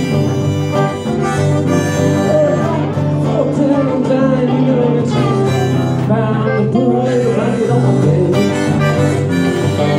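Live band music: a harmonica, cupped against a handheld microphone and amplified, plays wavering, bending lead lines over strummed acoustic guitar and electric guitar.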